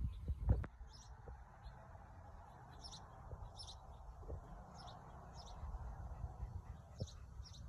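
Short high bird chirps repeating every second or so over a steady low outdoor background, after a brief clatter of knocks in the first half-second.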